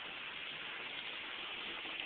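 Heavy rain falling in a thunderstorm, a steady even hiss.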